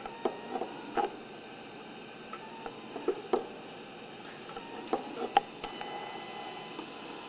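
TIG welding arc on a Miller Dynasty 200DX at DC straight polarity, around 125–130 amps, running steadily on a 4130 chrome-moly tube root pass, with several sharp clicks and ticks scattered through it.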